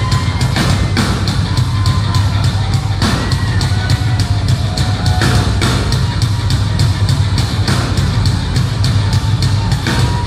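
Live rock band playing loud, with a fast, even, drum-heavy beat: the drum kit plus a floor tom pounded with mallets, under electric guitar and bass.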